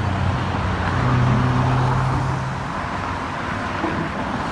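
Road traffic passing close by: a steady rush of tyres, with the low hum of a large vehicle's engine that fades out about two-thirds of the way in.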